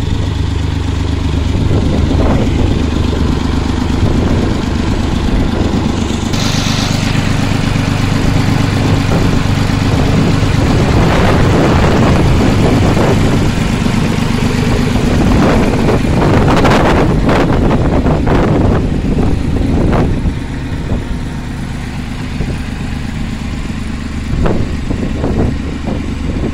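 Vintage tractor engines running as a line of tractors passes close by one after another. A steady low engine note changes pitch about six seconds in, with a brief hiss at that point. Several louder swells follow as machines go past, and it eases off somewhat near the end.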